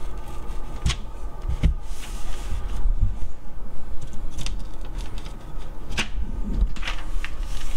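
Paper mounting template rustling and knocking against the wall under a pressing hand while screw holes are marked on it, with a few separate sharp taps.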